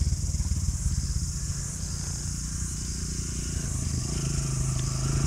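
Dirt bike engine running at low revs along a trail. A steady engine note grows louder near the end as another bike approaches.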